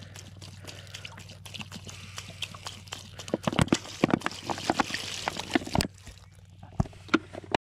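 Water pouring from a plastic bottle into a stainless steel pot of dandelion heads and lemon slices, splashing and trickling onto the flowers, with irregular sharp clicks and crackles from the bottle.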